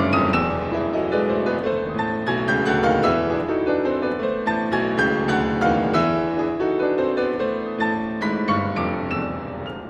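Steinway & Sons concert grand piano played solo: fast, dense passagework with many quick notes across the range, growing softer near the end.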